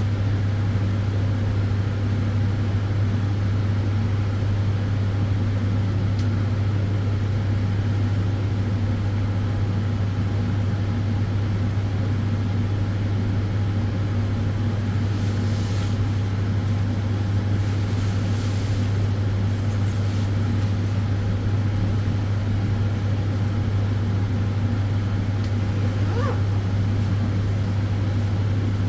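Sunbed running: the even whoosh of its cooling fans over a strong, steady low electrical hum.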